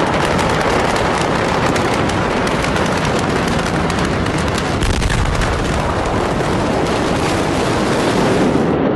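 A large fire burning at the Beirut port, heard through a phone's microphone: a loud, steady rush of noise with dense, rapid crackling pops throughout.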